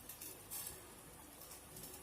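One faint, brief clink of a utensil against a cooking pan about half a second in, then only low background hiss.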